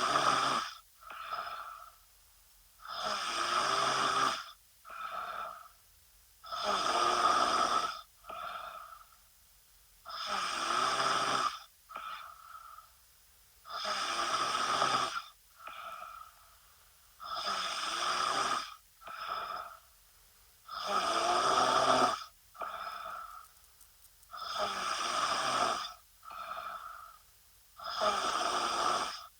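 A woman snoring in her sleep. Each snore lasts over a second and is followed by a shorter, quieter breath, in an even rhythm of about one snore every three and a half seconds, nine in all.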